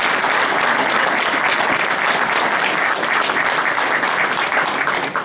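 Audience applauding, a steady, dense clapping of many hands that stops abruptly at the very end.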